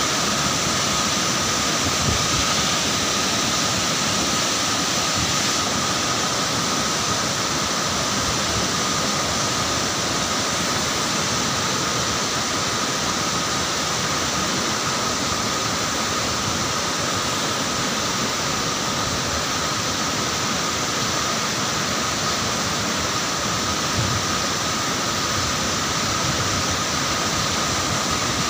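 Steady rush of a roadside mountain waterfall cascading over rocks and across the road, an even wash of water noise.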